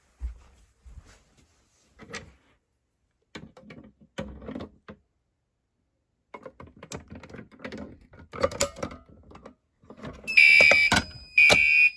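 Scattered knocks and rustling, then about ten seconds in a fire alarm horn starts sounding a loud, steady high tone in pulses, with sharp clicks between the pulses.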